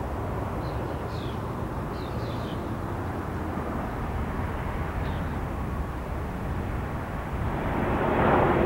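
Steady low rumble and hiss of airfield ambience, with a few short falling bird chirps in the first half. A louder rushing swell comes near the end.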